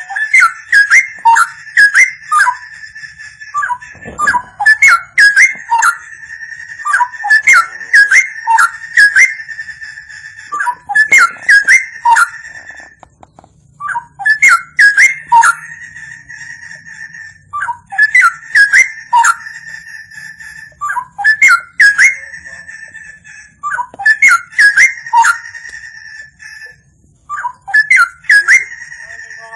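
Straw-headed bulbul (cucak rowo) singing: repeated loud phrases of swooping whistled notes, each a couple of seconds long, separated by short pauses.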